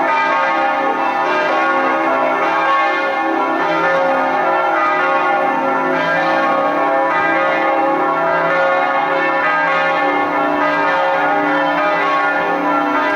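Church bells pealing, several bells ringing at once with their tones overlapping without a break.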